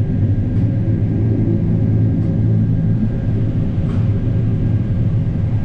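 Combine harvester running steadily while harvesting corn: a constant low drone of engine and threshing machinery, heard from inside the cab.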